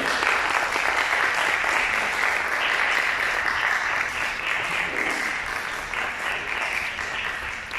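Audience applauding, a dense steady clapping that fades a little toward the end.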